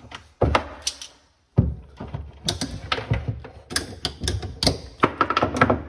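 Sharp clicks and clacks of hand tools and plumbing fittings being handled at a PEX water-supply stub under a sink, several knocks in quick succession.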